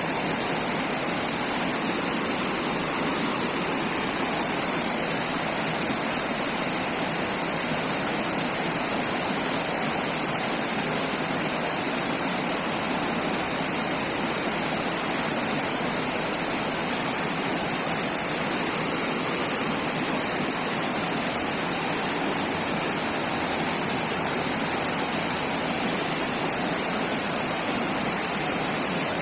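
River water flowing and rushing, a steady, even hiss of moving water with no breaks.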